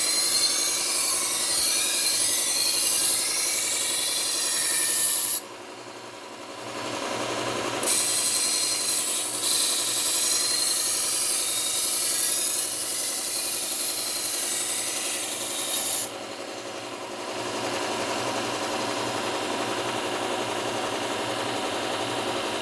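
A kitchen knife blade ground edge-leading on a Bucktool low speed belt sander with a Cubitron 120 grit belt, raising a burr along the edge. There are two long grinding passes, the first about five seconds and the second about eight, with a short break between. After the second pass the sander keeps running with nothing on the belt.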